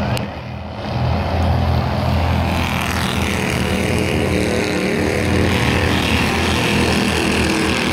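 Race car engines running on a short oval track. The engine sound is loud and continuous, with its pitch rising and falling as the cars accelerate and pass. It drops briefly just after the start, then comes back.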